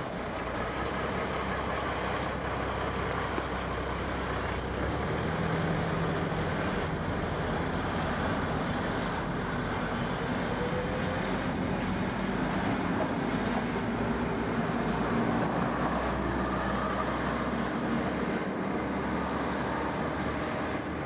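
FS ALn 668 diesel railcar passing close by, its underfloor diesel engine running under a steady noise of wheels on rails.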